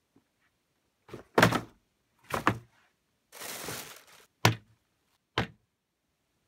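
Cardboard shoebox being put down and opened on a tabletop. Two dull thumps, about a second of tissue paper rustling, then two more sharp thumps.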